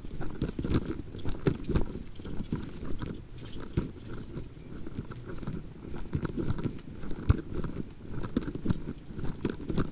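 Handling noise from a small camera carried by someone walking: irregular knocks, rubbing and rustling, with footsteps mixed in.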